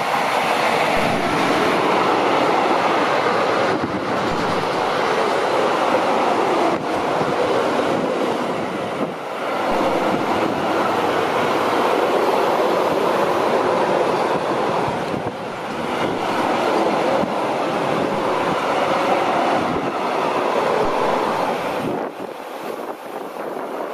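Freight train of double-deck car-carrier wagons rolling past close by, hauled by an electric locomotive: a steady, loud rumble and rattle of steel wheels on the rails, with a few sharper clacks over the rail joints.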